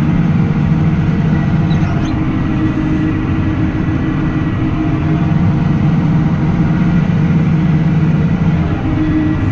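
Tractor engine running steadily while pulling a hay rake, with a low hum that swells and eases slightly and a faint high whine above it.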